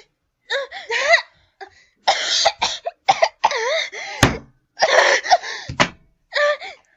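A person coughing, choking and groaning in pain in short repeated bursts, with two sharp impact knocks about a second and a half apart near the end.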